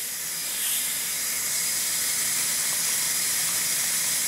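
Steady hiss of compressed shop air rushing through a venturi-type oil extractor as it draws vacuum, used here to suck diesel through a new fuel filter to prime it.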